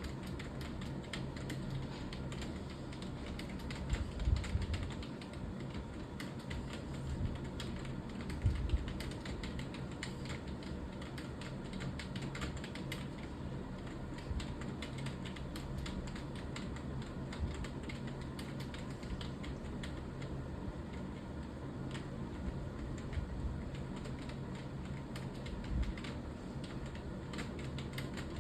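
Fast, continuous typing on a computer keyboard: a dense, irregular stream of key clicks with a few heavier thumps, over a low steady hum.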